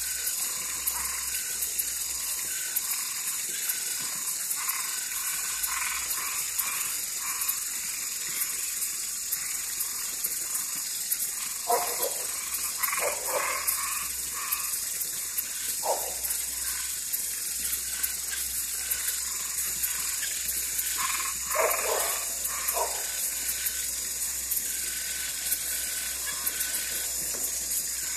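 Night chorus of frogs and tree frogs, a dense, steady high-pitched trilling with scattered short calls over it. A few louder, short calls stand out in two clusters, about halfway through and again about three quarters through.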